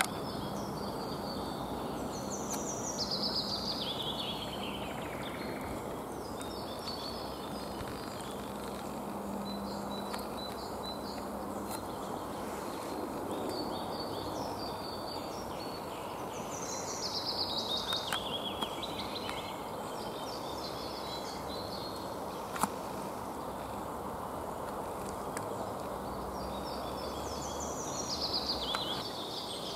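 A small bird sings a short song phrase that falls in pitch, three times: near the start, in the middle and near the end. Under it runs a steady background rush, and a single sharp click comes about two-thirds through.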